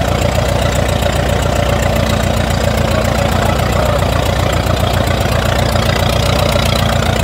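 IHC 8-16 Junior tractor's four-cylinder engine running steadily, with a rapid, even exhaust beat.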